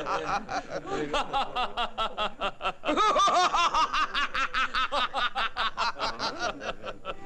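Several voices laughing together in quick repeated bursts, overlapping one another, tailing off near the end.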